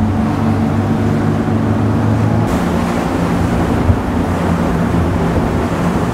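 A 32-foot Intrepid center-console boat's engines running steadily at planing speed, under a rush of wind and water off the hull. The hiss of wind and spray turns brighter and louder about two and a half seconds in.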